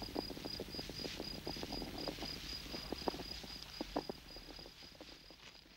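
Faint night-time ambience: a cricket chirping in a rapid, even, high-pitched pulse, with scattered small clicks and crackles underneath; it all fades out near the end.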